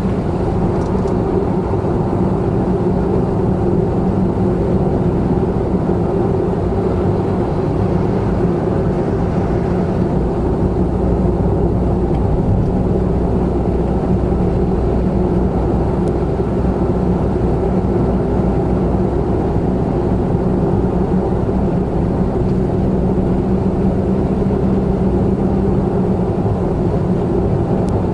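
A 2017 Honda N-BOX Custom kei car's 660 cc turbocharged three-cylinder engine running at a steady cruise on an expressway, its low drone blended with tyre and road noise.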